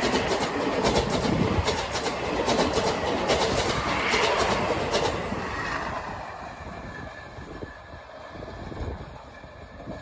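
Passenger train coaches rolling past at speed, wheels clicking over the rail joints, until the last coach goes by about five seconds in; then the train's rumble fades into the distance.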